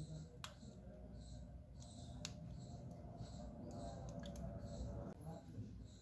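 Small flex-cable connectors on a smartphone motherboard being pressed home by fingertip: two small sharp snap clicks about two seconds apart, then a few fainter ticks, over quiet handling of the phone.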